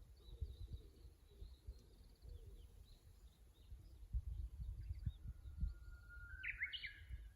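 Japanese bush warbler singing its song: one long held whistle followed by a quick rising, warbled flourish in the last couple of seconds. Faint chirps from other birds and a gusty low rumble of wind on the microphone run underneath.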